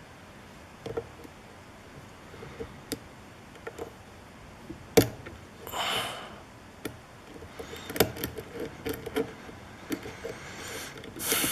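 Small metallic clicks and taps of lock picks and a tension wrench working in a pin-tumbler lock cylinder clamped in a vise, with a sharper click about five seconds in and again about eight seconds in. A short hiss comes in around the middle and a louder one near the end.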